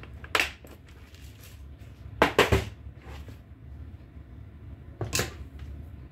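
Small hard objects being handled and knocked on a workbench. There is a click about half a second in, a quick cluster of three louder clatters a little after two seconds, and another clatter near five seconds.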